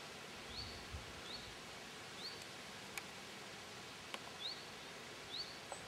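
Faint outdoor background with a small bird repeating a short, high rising chirp every second or so, and two small clicks.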